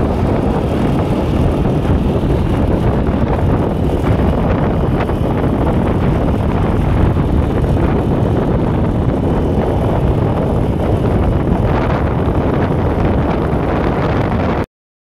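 Wind rushing over the microphone of a motorcycle riding at speed, mixed with the ride's vehicle noise: loud and steady. The sound cuts out completely for a moment just before the end.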